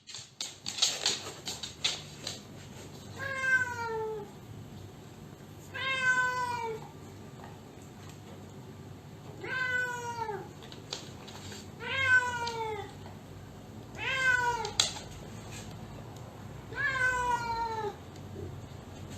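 A cat meowing over and over: six drawn-out calls, each falling in pitch, coming every two to three seconds, with a few light clicks near the start.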